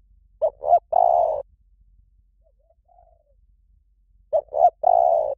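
A dove cooing a three-part phrase twice: two short coos and then a longer drawn-out coo.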